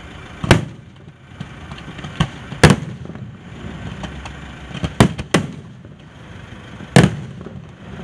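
Aerial fireworks display: six sharp bangs of shells going off in eight seconds, two of them close together near five seconds in, over a constant noisy background between the bangs.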